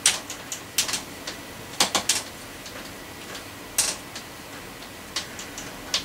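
Irregular sharp clicks and knocks from a mountain bike being shifted and repositioned in a work stand, coming a few at a time, with a cluster about two seconds in and single knocks near four and five seconds.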